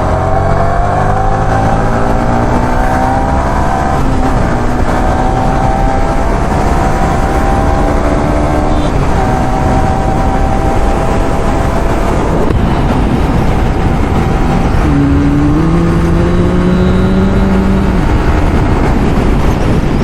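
KTM Duke 250's single-cylinder engine running under way, its pitch climbing through the first few seconds, then holding fairly steady, with another rise about three-quarters of the way in. A heavy low rumble of wind noise runs underneath.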